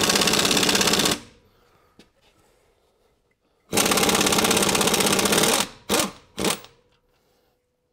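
Impact wrench hammering rapidly on a harmonic balancer puller's centre bolt as the puller draws the harmonic balancer off the crankshaft. One burst ends about a second in, a second runs for about two seconds from near four seconds in, then two short blips follow.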